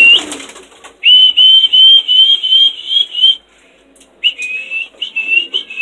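A person whistling loudly on one high, slightly warbling note, in three stretches: the first ends just after the start, the second runs for a couple of seconds, and the third comes in about four seconds in.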